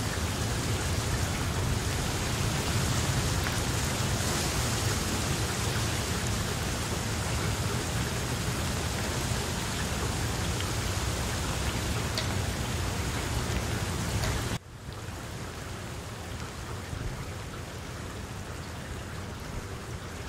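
Steady rain falling on papaya leaves, a dense even hiss. About fourteen seconds in it drops suddenly to a quieter level and carries on.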